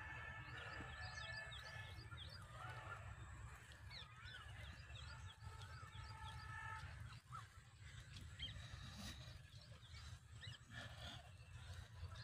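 Faint outdoor birdsong: many short chirps and a few warbling calls, thinning out after about seven seconds, over a low steady rumble.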